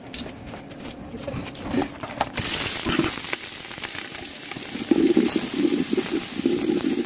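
Hot mustard oil in a metal pot bursts into a loud hiss when chopped onions and green chillies are dropped in, a little over two seconds in. It keeps on as a steady sizzle, with a flat spatula stirring and scraping the onions around the pot in the last couple of seconds.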